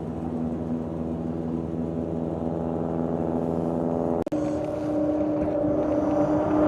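Snowmobile engine running at a steady pitch and growing louder. About four seconds in, the sound cuts abruptly to a different, higher engine tone.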